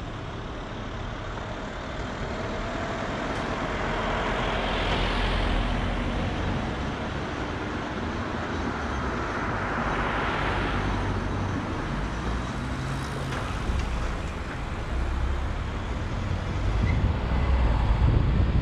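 Street traffic noise heard from a car waiting at a red light, with other vehicles passing in two swells, about four to six seconds in and again around ten seconds. Near the end a deep rumble rises as the car pulls away.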